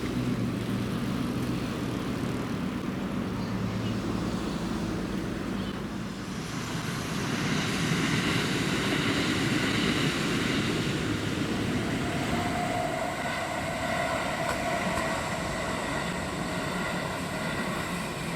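A low steady hum, then about six seconds in the running noise of a passing electric train swells, peaking around ten seconds, with steady high whining tones over it.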